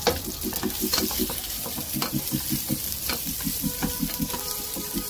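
Ginger and onion frying in hot oil in a nonstick pan: a steady sizzling hiss with occasional sharp pops.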